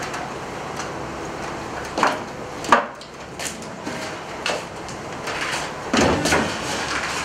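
Footsteps and knocks on wooden boat decking as people step down and walk across it: a handful of separate thuds, the loudest about two seconds in and again around six seconds in.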